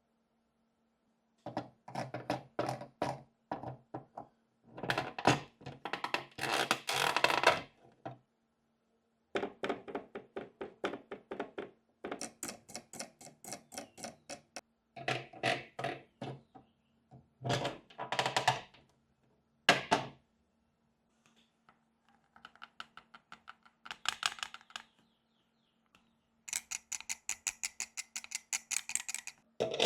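Rapid, crisp scratching and tapping strokes on miniature toy bathroom pieces, in bursts of a few seconds with short pauses between them.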